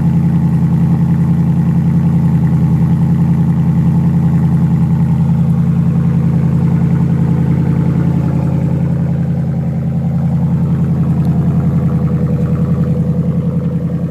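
2013 Ford F-150's Coyote 5.0 V8 idling steadily through a true dual exhaust, a deep even exhaust note that dips slightly about ten seconds in.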